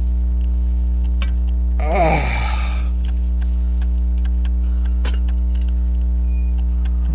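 Steady mains hum from a camcorder run on AC power with its microphone not grounded, over faint scattered clicks. About two seconds in comes a short falling groan from a person.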